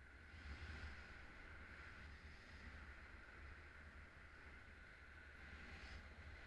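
Faint steady airflow hiss with a low rumble, from wind passing a camera carried under a paraglider in flight. It swells a little about half a second in and again near the end.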